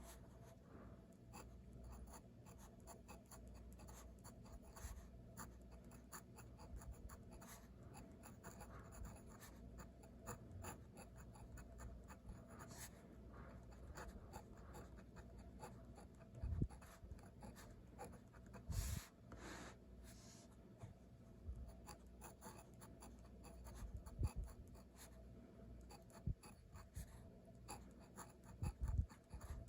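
Handwriting on paper: a pen scratching and tapping through many short strokes of Japanese characters, faint and close. A few louder low thumps break in now and then.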